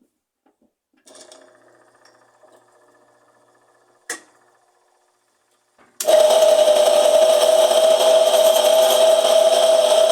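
Electrolux LTE12 washing machine motor switched on to wash: after faint mechanical sounds and a click about four seconds in, the motor starts about six seconds in with a loud, harsh, steady scraping noise and a strong hum. The noise comes from a worn bearing behind the motor's pulley.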